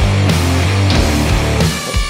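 Background heavy rock music with a driving beat and heavy low notes, dipping briefly near the end.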